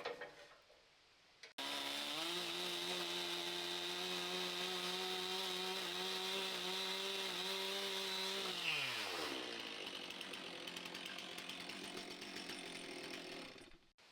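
Power tool motor whining at a steady speed, then winding down with falling pitch once released. It is followed by a steady hiss that cuts off suddenly near the end.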